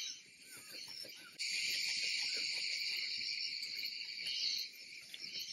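Insects shrilling in a steady, high-pitched chorus. One grows much louder about a second and a half in and drops back near the end, over a soft rustle of citrus branches and leaves as fruit is picked by hand.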